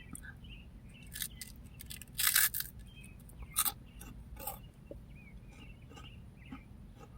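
A person chewing crunchy puffed snack rings (spicy Funyun-like puffs), a few separate crisp crunches, the loudest about two seconds in.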